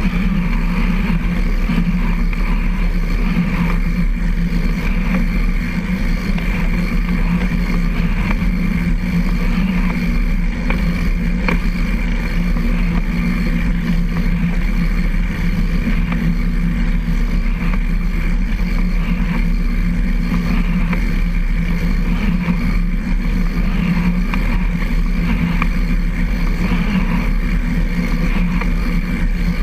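Steady running noise of a recumbent trike rolling along a paved trail, heard from a camera mounted beside its chain drive: a continuous low hum with a fainter high whine and no letup.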